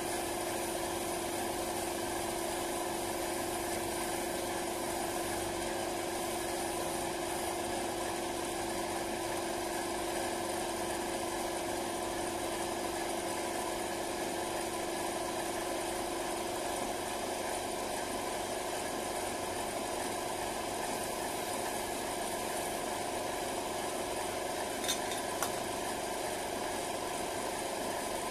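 Air compressor running steadily with an even hum and hiss, supplying air to a paint spray gun. Two faint clicks near the end.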